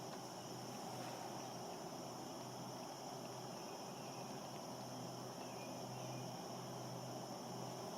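Insects trilling steadily in a faint outdoor background, over a low, even hum.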